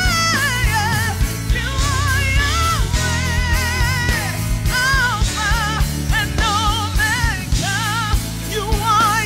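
Live gospel worship band: several voices singing with wavering, ornamented runs over bass guitar, electric guitar, keyboard and a drum kit keeping a steady beat.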